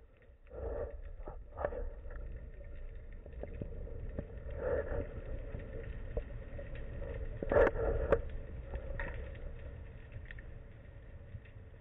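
Underwater sound picked up by a speargun-mounted camera in its housing during a breath-hold dive: a steady muffled low rumble of moving water with scattered sharp clicks, and a few louder muffled swells, the loudest about seven and a half to eight seconds in.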